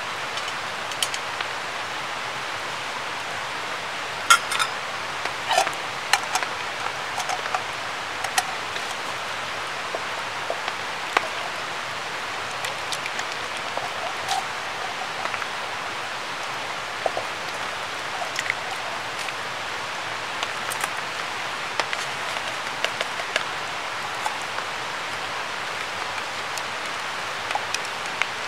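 Scattered light clicks and clinks of stainless-steel camp cookware, a canteen cup and small pot being handled and stirred, over a steady hiss. The sharpest clicks come in the first third.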